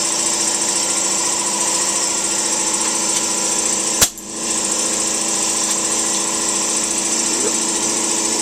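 A motor running steadily with an even hum, and one sharp click about four seconds in.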